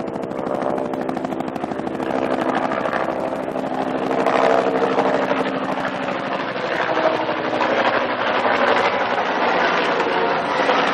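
Low-flying helicopter passing overhead, its rotor chop and engine growing louder over the first few seconds and then holding steady.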